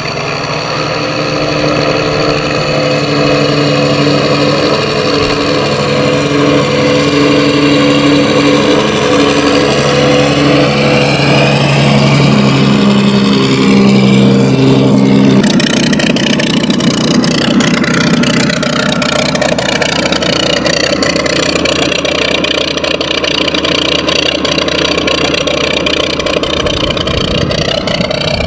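Benedini digital sound unit in an electric RC P-40 Warhawk model playing a simulated piston aero-engine sound through its speaker while the model taxis. A steady low engine drone stepping up and down in pitch changes abruptly about halfway through to a rougher, fuller sound, mixed with the electric motor and propeller.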